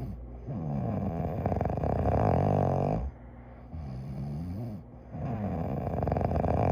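A person snoring in sleep: two long snores, one starting about half a second in and one about five seconds in, each lasting about two and a half seconds, with quieter breathing between them.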